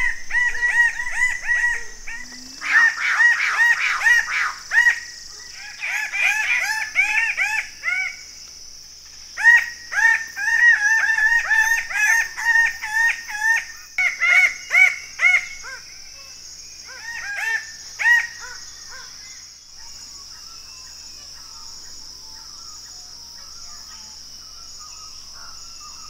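Male red birds of paradise giving display calls in the canopy: loud bursts of rapid, repeated arching notes that stop about eighteen seconds in. A steady high insect drone runs underneath.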